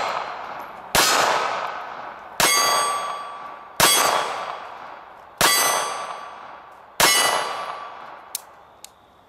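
Five shots from a Micro Desert Eagle .380 ACP pocket pistol, about one and a half seconds apart, each followed by a hit steel target ringing out and slowly dying away. Two faint clicks near the end, with the pistol shot empty.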